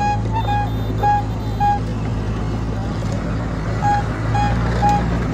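Heavy vehicle or construction machine engine running steadily, with a beeping reverse alarm: short beeps about every half second, pausing for a couple of seconds in the middle.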